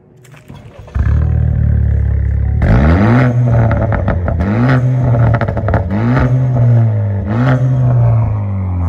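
A 2017 Chevy Malibu's engine starts up about a second in and idles, then is revved four times through its exhaust, each rev rising and falling back.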